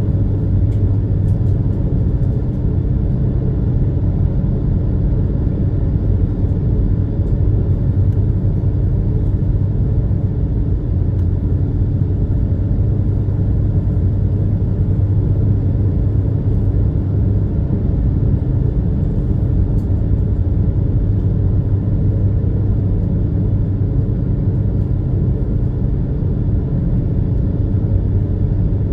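Steady low drone of the Super Jet "Dogo" high-speed passenger craft's engines running under way, with a constant deep hum and no changes.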